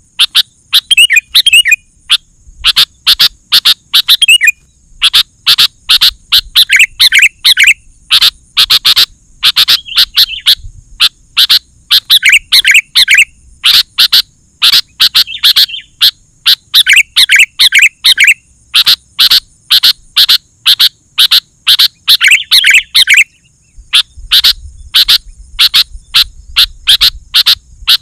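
Sooty-headed bulbul (kutilang) calling vigorously: loud, rapid bursts of sharp chirping notes, phrase after phrase with short gaps between them.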